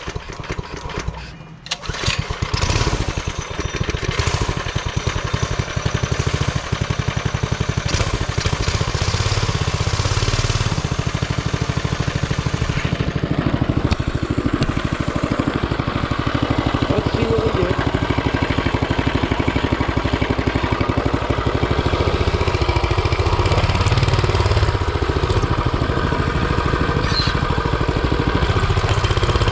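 Rebuilt Hisun 196cc single-cylinder four-stroke engine on a mini bike starting about two seconds in and then running steadily loud. It sounds rough to the owner, who blames a VM22 carburetor he cannot get tuned to run consistently.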